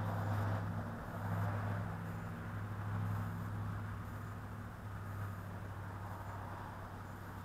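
A vehicle engine running steadily with a low hum, slowly fading.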